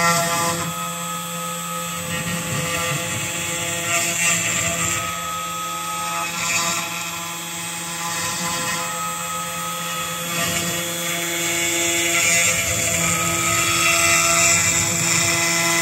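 Vevor 3018 desktop CNC router's small DC spindle running steadily as its end mill cuts through a 5.5 mm acrylic sheet. A constant hum sits under a hiss of cutting that swells and fades as the tool moves, with higher tones coming and going.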